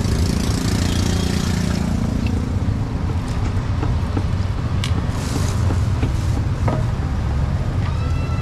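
Busy street traffic: vehicle engines running in a steady low rumble, with a few short clicks and knocks. Near the end a held pitched tone begins.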